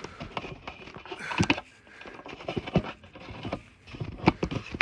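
Handling noise from unpacking an electric unicycle: irregular knocks, clicks and brief rustles of packaging as the wheel is uncovered.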